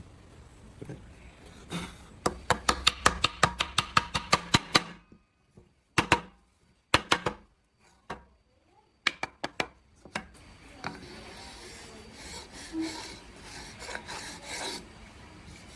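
Hand tool work: a fast run of sharp clicks, about five a second for three seconds, then a few separate clicks, then a stretch of rough rubbing and scraping.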